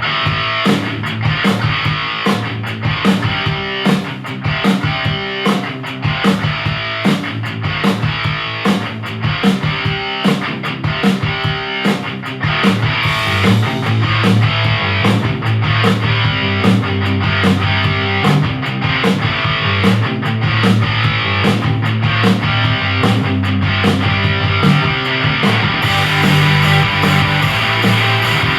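A rock song with electric guitar and a steady drum beat, played through the Edifier PrismaBT 2.1 Bluetooth speaker system with its subwoofer. It starts just before this point and gets louder about twelve seconds in.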